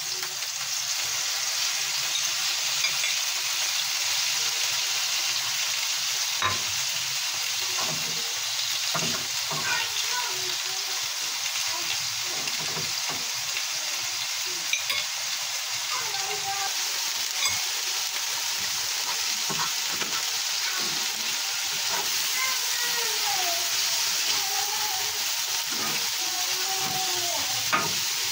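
Hot oil sizzling steadily in two frying pans, chips in one and pale pieces of food in the other, with a few light clicks.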